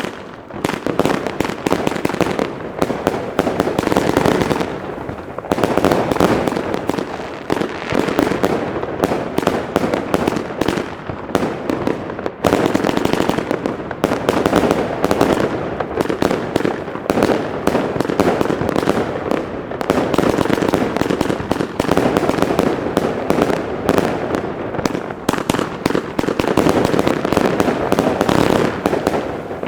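Albert 'King of Bling' firework battery firing: a dense, nearly unbroken run of rapid pops and bangs, with short lulls about 5 and 12 seconds in.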